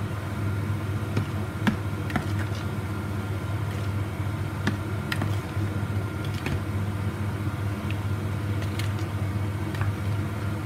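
Steady low background hum, with faint, scattered wet squelches and clicks of hands mixing chicken pieces in a marinade of soy sauce, lemon, garlic and black pepper in a plastic bowl.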